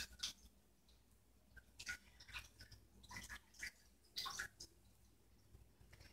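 Faint, scattered rustling and crackling from wet beet greens being handled and squeezed in a strainer to drain, a few short bursts a second apart that die away near the end.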